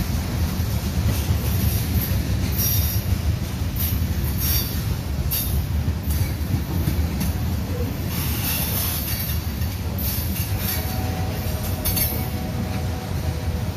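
Train cars rolling past: a steady low rumble with scattered sharp clanks from the wheels and couplers, and a faint steady squeal from the wheels for a few seconds near the end.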